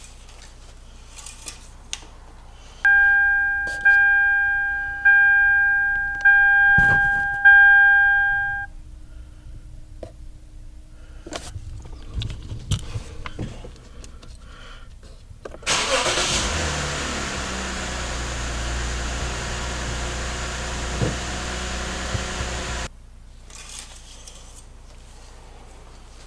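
A car's warning chime dings five times. About seven seconds later the 2008 Lexus IS250's 2.5-litre V6 starts and idles steadily for about seven seconds, then cuts off suddenly. There are a few clicks and handling noises in between.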